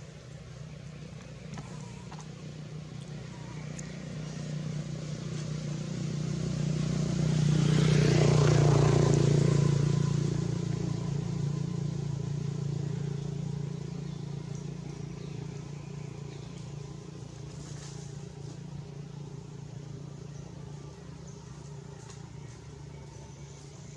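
A motor vehicle's engine running as it drives past. It grows louder to a peak about a third of the way in, then slowly fades away.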